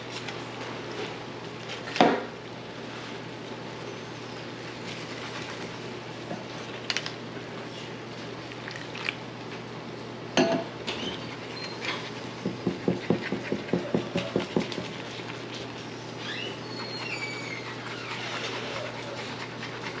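A metal fork clinks and scrapes against a saucepan as gravy is stirred, with a quick run of taps, several a second, about twelve to fifteen seconds in. There are a few sharp knocks before that, the loudest about two seconds in, all over a steady low hum.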